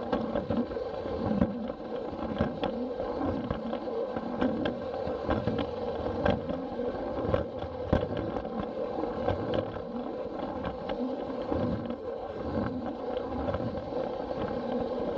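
Battery-powered Plarail toy train's motor whirring steadily as it runs along plastic track, with frequent irregular clicks as the wheels cross the rail joints.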